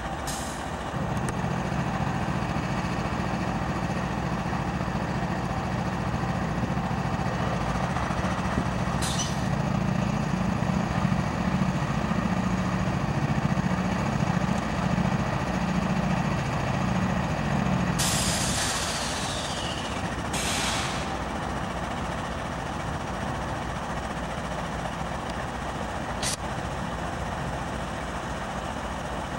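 Norfolk Southern wide-cab diesel locomotives with a Conrail unit in the consist, their engines running with a steady low drone that wavers in pitch through the middle. About two-thirds of the way in comes a sharp hiss of air from the brakes, falling in pitch, then a second shorter hiss, after which the engine drone drops away to a quieter idle.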